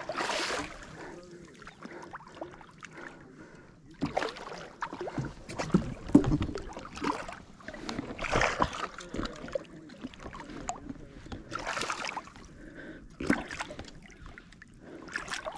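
Irregular water splashes and knocks at the side of a fishing boat as a hooked striped bass is fought in and landed by hand, without a net. The bursts come every one to a few seconds with no steady rhythm.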